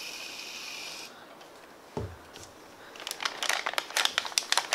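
Shaving foam hissing out of an aerosol can, stopping about a second in. A soft thump follows, then from about three seconds the crackly crinkling of a plastic piping bag being handled.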